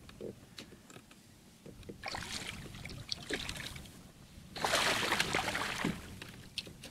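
Water splashing and sloshing at the side of a kayak as a hooked bass is fought near the boat. The splashing comes in two spells, from about two seconds in, and the second is louder.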